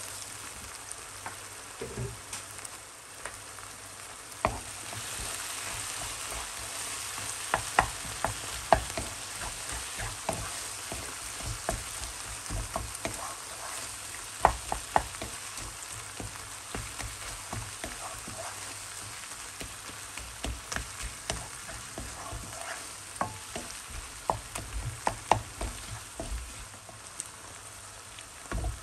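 Food frying in a pan, a steady sizzle, as it is stirred, with frequent sharp taps and scrapes of the spoon against the pan.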